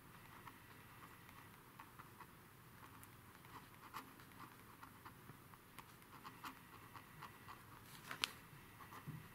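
A pen writing on paper: faint, irregular small scratches and taps of the pen tip as words are written, with one sharper tick about eight seconds in.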